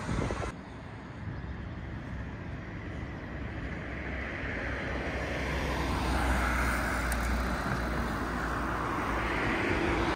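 City street traffic: a car's engine and tyres swell as it approaches and passes close by, loudest about six seconds in, over a steady low rumble of road traffic.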